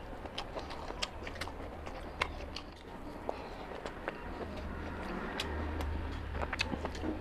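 Close-miked eating by hand: chewing with irregular wet mouth clicks and smacks, and fingers squishing rice and curry on a steel plate, over a steady low hum.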